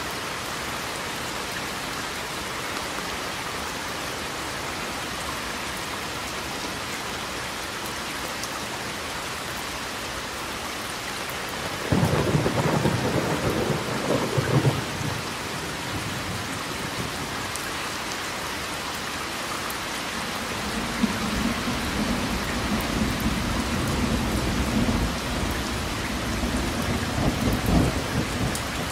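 Steady heavy rain falling, with a sudden thunderclap about twelve seconds in that lasts about three seconds. A long, low rumble of thunder builds in the last third and carries on to the end.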